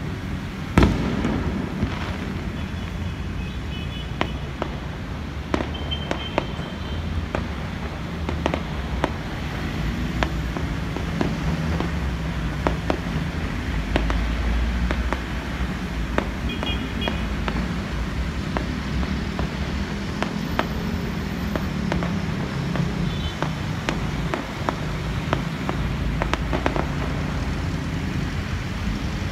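Aerial fireworks bursting and crackling again and again, the loudest bang about a second in, over a steady low rumble of city street traffic.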